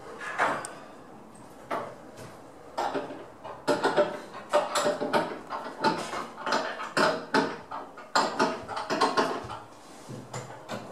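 Irregular knocks and clatter of hard objects from a fitter working on new kitchen cabinets. The knocks are sparse at first and come thick and fast from about four seconds in.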